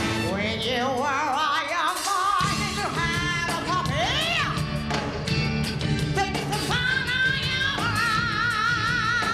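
Female lead singer belting with heavy vibrato over a live rock-and-soul band. The band drops out at the start, leaving the voice alone on a rising line, and comes back in about two seconds in. She swoops up and down around four seconds in and holds a long wavering note near the end.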